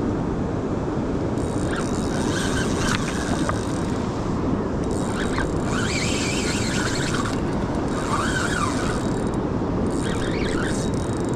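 Steady rushing of river water, with short high, wavering sounds coming and going several times over it.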